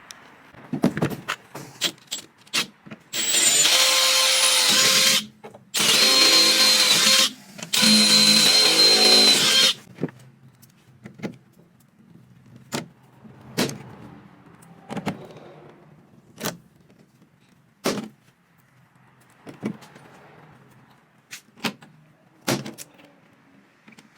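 Power drill running in three bursts of about two seconds each with a steady whine, drilling holes for rivets in the aluminum truck bed panel, followed by a string of sharp clicks about every second and a half.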